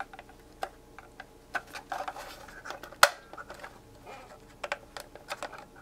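Scattered sharp plastic clicks and taps from handling the Simpson 461-2 digital multimeter and pressing its front-panel push-button switches, now seated through the case holes; the loudest click comes about three seconds in.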